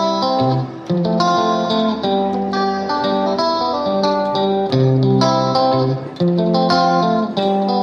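Background music: a plucked guitar melody with a steady pulse.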